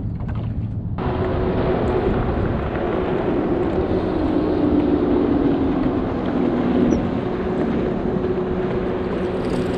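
Motorboat's outboard engine running steadily, with water and wind noise; it cuts in abruptly about a second in.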